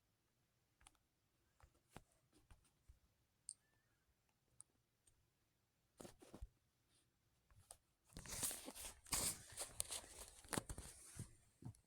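Scattered faint clicks and taps, then about three seconds of close rustling, crinkling handling noise that starts about eight seconds in and stops shortly before the end.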